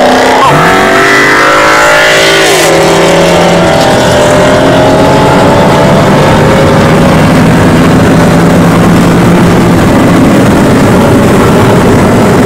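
Ford Mustang GT's V8 through a Borla ATAK exhaust, loud, passing with its note sliding up and down in pitch. About four seconds in it settles into a steady engine drone.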